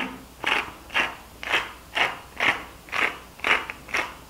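Hand-twisted salt mill grinding salt crystals, a gritty crunch about twice a second with each turn of the mill.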